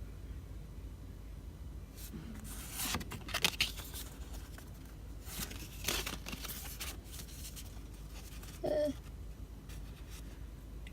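Paper and plastic packaging rustling and tearing as it is opened by hand, in a few short bursts, the loudest about three seconds in.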